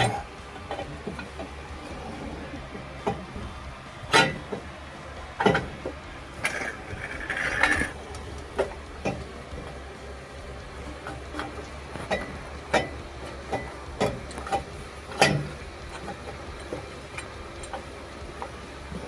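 Irregular metal clinks and knocks of hand tools working on a car's exhaust and suspension parts, over a low steady hum.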